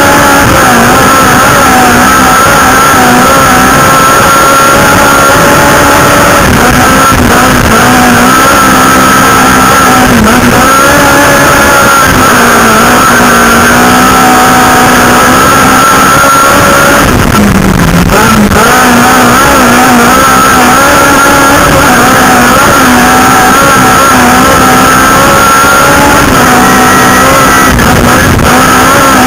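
Autocross car's engine running hard at high revs, heard loud from inside the cockpit. The engine note holds fairly steady, then briefly drops and climbs back a little past halfway.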